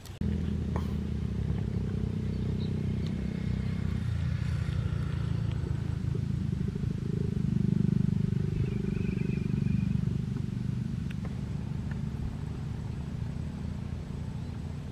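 A small engine running with a low, steady pulsing drone. It starts abruptly and swells louder for a few seconds in the middle.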